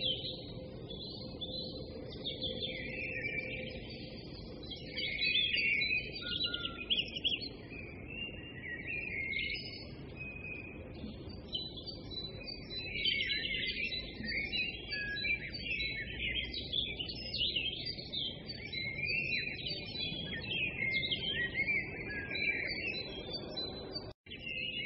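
Many small birds chirping and twittering in dense, overlapping calls, over a low rushing background noise.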